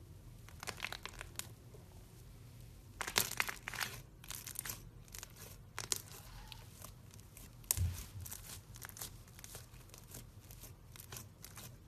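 Thick slime pressed by hand into a wire cooling rack, giving irregular clusters of sticky crackles and pops, with a thump about eight seconds in.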